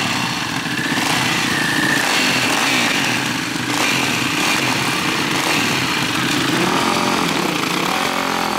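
Several dirt bike engines running, their pitch rising and falling with throttle blips.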